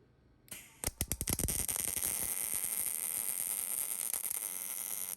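Electric arc welding on a steel part: the arc strikes with a quick run of sharp crackles about a second in, then settles into a steady frying hiss that stops abruptly at the end.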